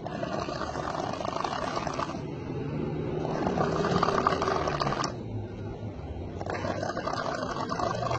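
A man snoring loudly: three long, rattling snores about three seconds apart, the middle one loudest, with a lower, smoother tone between them.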